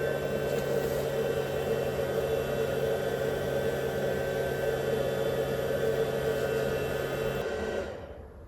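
Procolored K13 Lite DTF printer running its test-strip print with no ink loaded yet: a steady mechanical hum with a low steady tone, which stops shortly before the end.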